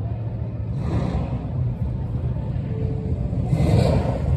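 Car engine rumbling steadily, with two brief swells of hissing noise, about a second in and near the end.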